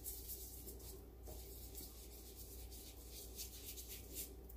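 Paintbrush brushing blue paint onto paper in short, irregular scratchy strokes, about two a second. The sound is faint, over a low steady hum.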